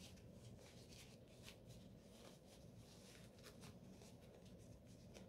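Near silence, with faint scattered rustling of a disposable surgical mask's fabric as the small pouch made from it is handled and turned right side out.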